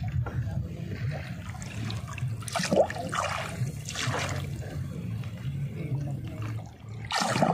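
Water splashing and sloshing in several rushing bursts.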